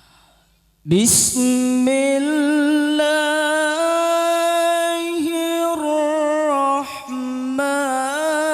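A single voice reciting the Quran in melodic tilawah style. It comes in suddenly about a second in and holds long notes that waver and turn, with short breaks between phrases.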